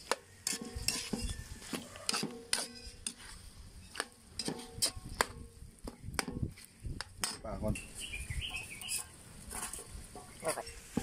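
Metal spatula scraping and knocking against a steel wok while stirring chopped meat and offal sautéing in its own fat, in irregular clanks about twice a second.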